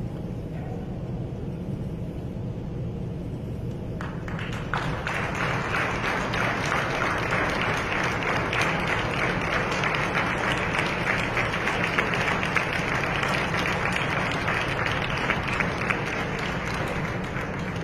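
Audience applauding: the clapping starts about four seconds in and continues until near the end, over a steady background crowd murmur.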